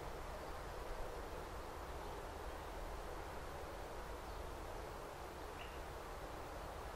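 Outdoor hush of a minute's silence: a steady, faint background of outdoor noise, with a single faint bird chirp about five and a half seconds in.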